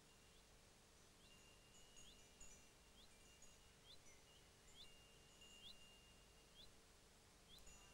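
Near silence: faint, short, high rising chirps repeat about once a second over a faint steady hum.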